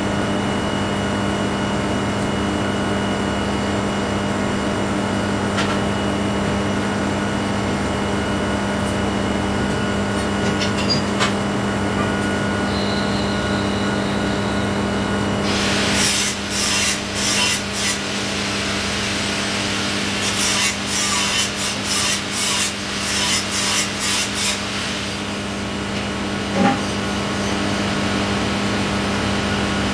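TIG welding on steel pipe: a steady electrical hum from the arc and welding machine. Through the second half come irregular bouts of scraping and crackling, the ceramic torch cup being rocked along the pipe as the welder walks the cup.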